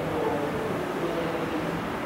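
Departing 300 Series Shinkansen train's rumble dying away down the line, a steady low noise slowly getting quieter, over the station's background hum.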